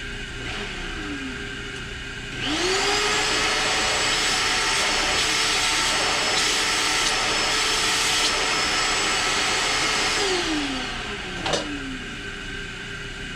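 Small vacuum cleaner switched on, spinning up quickly and running steadily for about eight seconds, then winding down, clearing metal filings from a freshly tapped thread.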